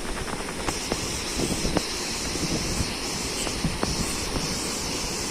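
Steady rush of a waterfall, with a few short clicks and knocks scattered through it.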